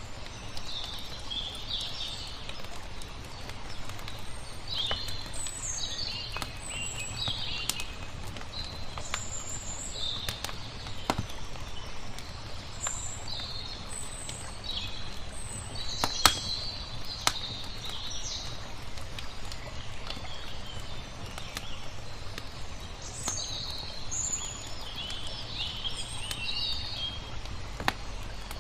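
Small songbirds chirping and twittering throughout, over a low steady rumble of water, with a few sharp pops from a crackling wood fire, the loudest about halfway through.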